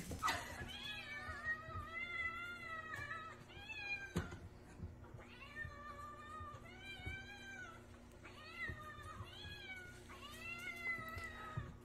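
Domestic cats meowing insistently for food: a long string of about ten drawn-out meows, each rising and then falling in pitch, with short pauses between them.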